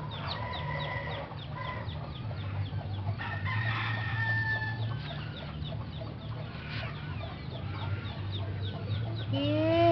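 Birds calling: a constant run of short, quick, high chirps, with a few long held calls and rising calls near the end, over a steady low hum.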